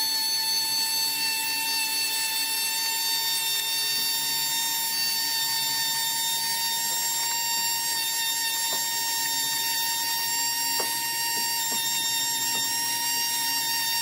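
Small electric sander running steadily with a constant high whine while sanding and rounding the corners of a soft cedar box.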